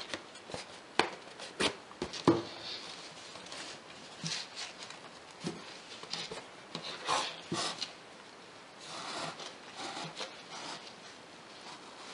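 Satin embroidery ribbon being drawn through the fabric in a straight stitch while the wooden-style embroidery frame is handled: light rustling and rubbing swishes with scattered small clicks and taps.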